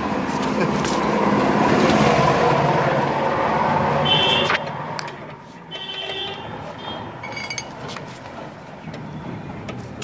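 A motor vehicle passing close by, its engine and tyre noise swelling and then cutting off suddenly about four and a half seconds in. After that, quieter street background with a few short, faint high chirps.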